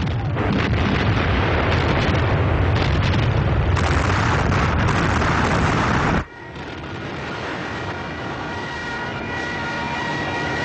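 Artillery barrage: many guns firing in quick succession over a continuous heavy rumble, cutting off abruptly about six seconds in. After it comes a quieter stretch with steady high whistling tones.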